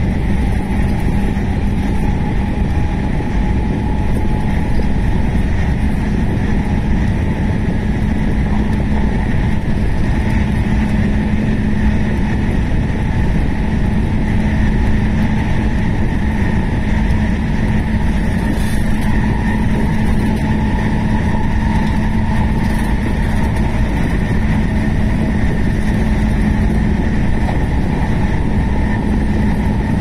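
JR West 221 series electric train running at a steady speed, heard from inside the passenger car: a continuous rumble of wheels on rail with a steady hum that holds its pitch.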